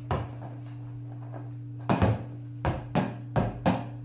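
A large rubber emoji ball being batted with ping pong paddles and bouncing on the table: one knock at the start, then after a pause a quick run of five knocks in the second half. A steady low hum runs underneath.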